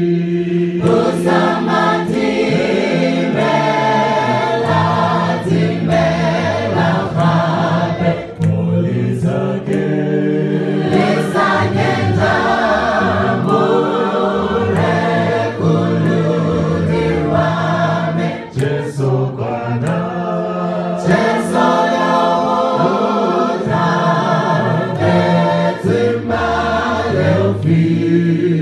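Small mixed vocal group singing a Setswana hymn in parts into microphones, a sustained bass line under the higher voices.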